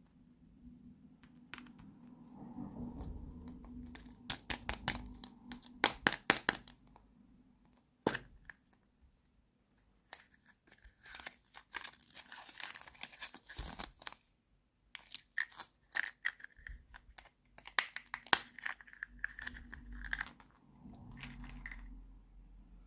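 Plastic packaging of a miniature toy kitchen set being opened and handled: crinkling and tearing, with many sharp clicks of small plastic pieces. The clicks come in dense runs, thickest around a quarter of the way in.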